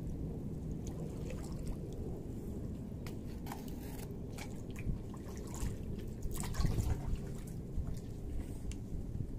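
Kayak paddle strokes in calm water: the blades dipping in and dripping, with short splashes and trickles off the blade. Under them runs a steady low rumble.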